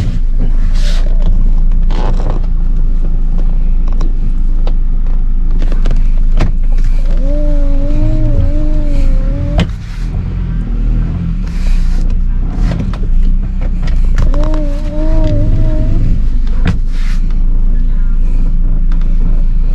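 A car engine running at low speed under load, a steady low drone with scattered knocks and clicks, while the car is manoeuvred on a steep slope. A wavering whine comes in twice, each for two or three seconds.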